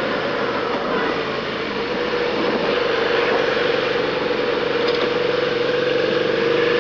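Suzuki SV650's V-twin engine running at a steady, even pitch while riding, with a constant rush of wind and road noise over it.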